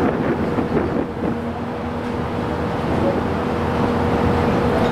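Car ferry's engines droning steadily with a held hum, with wind buffeting the microphone on the open deck.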